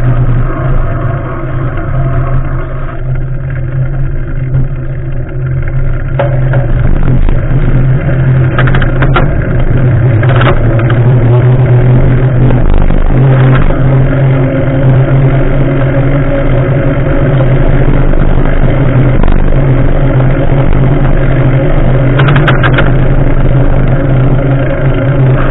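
Steady low rumble of a bicycle rolling on asphalt, heard right at the front wheel, with a few brief rattles.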